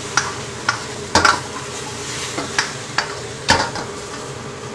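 A metal ladle stirring and scraping chicken pieces around a carbon-steel wok, with a steady sizzle of frying. The ladle knocks sharply against the wok six or seven times.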